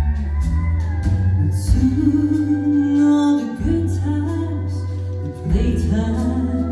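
Live band music: a woman singing over pedal steel guitar, electric bass and drums, with cymbal hits.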